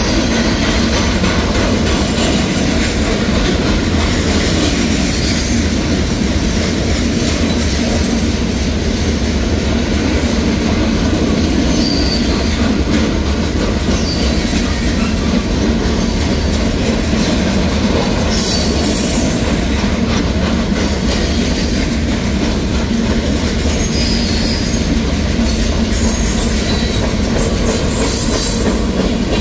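Freight cars of a manifest train rolling past at steady speed: a continuous rumble and clatter of steel wheels over the rails, with short high-pitched wheel squeals now and then.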